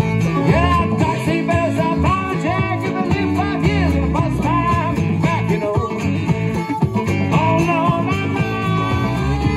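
Live blues band playing: amplified harmonica over resonator guitar, electric bass and congas, with many bending notes.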